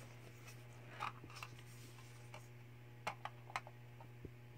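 Faint scattered clicks and taps of small makeup items, compacts and palettes, being handled in a storage drawer: a few around a second in, a quick cluster past the middle and one more near the end. A steady low hum runs underneath.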